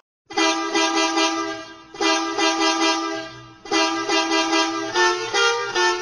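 Multi-tone Volvo bus horn, edited into a sound-effect variation, sounding in three long blasts of a second and a half or more each with brief breaks between them; the notes of the last blast shift about five seconds in.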